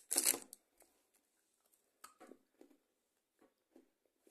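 Chocolate-bar wrapper crinkling briefly at the start, then faint scattered clicks and rustles as the bar is handled.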